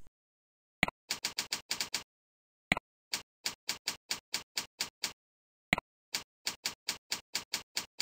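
Computer keyboard typing in three quick runs of keystrokes, each run begun by a single mouse click, as a login, a password and its confirmation are typed into form fields.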